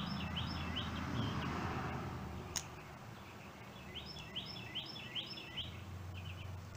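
A songbird singing two phrases of quick repeated high chirps, one at the start and one past the middle, over a steady background hiss. One sharp click about two and a half seconds in.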